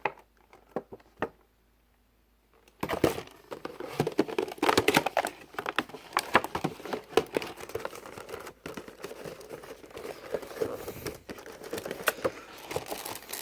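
A few light clicks, then from about three seconds in, continuous crinkling and rustling of packaging being handled while a boxed collectible model is unwrapped.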